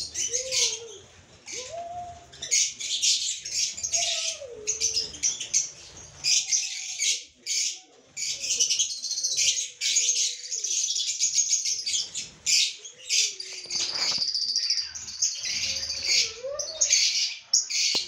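A flock of lovebirds (Agapornis) chattering, a dense, continuous shrill twittering that swells in louder bursts.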